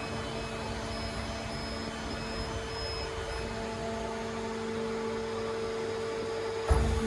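Peddinghaus Avenger beam drilling line standing by, its machinery giving a steady hum with a couple of level tones. A single clunk comes near the end.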